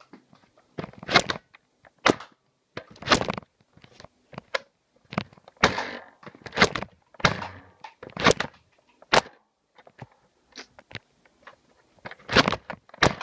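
Nerf DualStrike foam-dart blaster being fired over and over, a sharp clack with each shot, about one a second.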